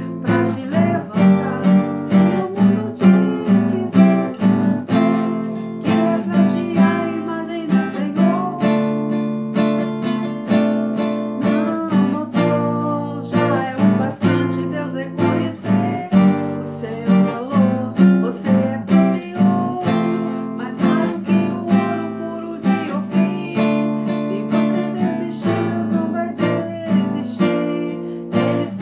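Nylon-string electro-acoustic guitar played unplugged, its chords strummed in a steady rhythm.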